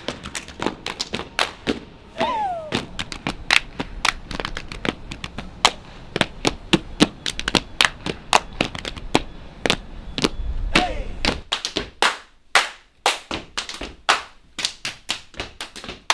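Body percussion played live: a quick, dense rhythm of hand claps, slaps on the body and stomps, with a short falling vocal sound about two seconds in and another near eleven seconds.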